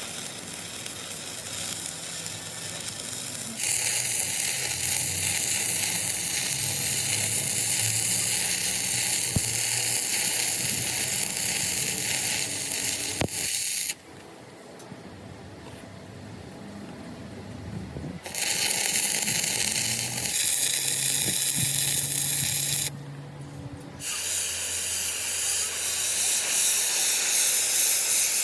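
Steady hissing in three long stretches of several seconds each, starting and stopping abruptly, over a low hum.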